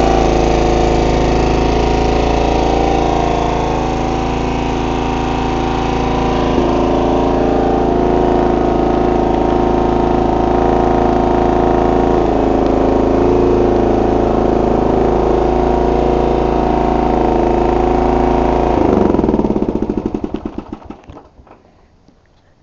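John Deere RX75 riding mower's 9-horsepower Kawasaki engine running steadily, then switched off about 19 seconds in, its firing slowing and dying away over a couple of seconds.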